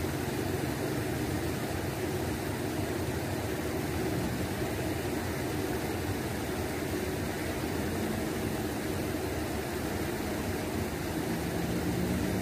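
Shallow river water running steadily over a low concrete weir: an even rushing noise with no distinct splashes.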